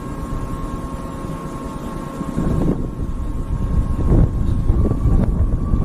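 Steady low rumble of a large ship's machinery with a thin steady hum, and wind buffeting the microphone, gusting louder from about two seconds in.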